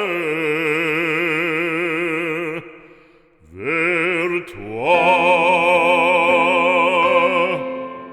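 Background music: a solo singer in operatic style sings a French religious song, holding long notes with wide vibrato. One held note fades out about two and a half seconds in, then after a short gap a new note swells up and is held.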